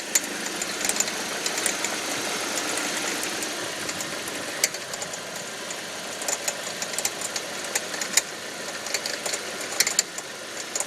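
2005 Audi 1.8T turbocharged four-cylinder engine running, with an irregular popcorn-like rattle of sharp ticks over the steady engine noise, from around the alternator. The rattle comes only under load in gear; the owner wonders whether the water pump or the alternator is at fault.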